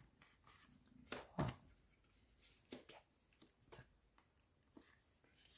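Faint clicks and taps of playing cards being counted off one by one and laid down on a table mat, a handful of separate small sounds, the loudest about a second and a half in.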